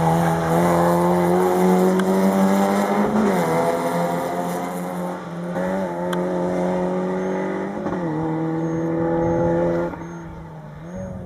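Toyota rally car's engine at high revs on a tarmac stage, the pitch dipping briefly about three seconds in and again near eight seconds as the driver lifts and shifts for the bends, then fading as the car pulls away.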